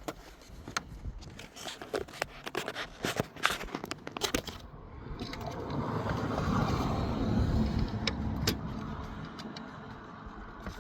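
Plastic clicks, knocks and scrapes as the latch handles on a Dodge Journey's TIPM fuse box are pulled up. Midway a low rushing noise swells and fades over several seconds.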